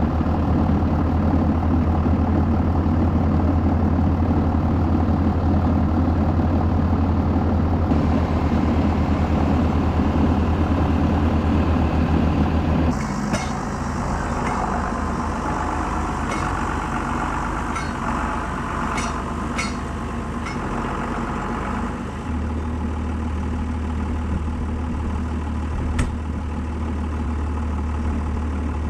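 Heavy diesel tractor engine running steadily. About halfway through the sound changes abruptly to a quieter engine mix with a few knocks and clicks, and the deep steady hum returns near the end.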